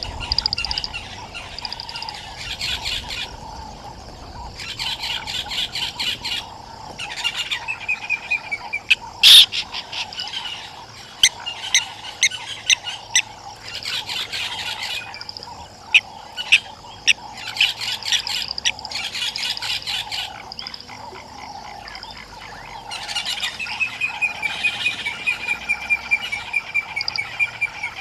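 Frogs and birds calling: bursts of rapid trilling calls every few seconds over a steady background chorus, with a few sharp clicks in the middle and a long whistled call near the end.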